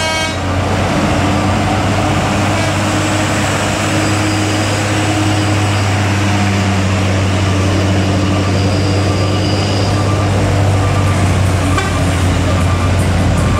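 Heavy diesel truck engines running close by in slow, stop-and-go traffic, with a loud, steady low drone. A brief high-pitched sound comes right at the start.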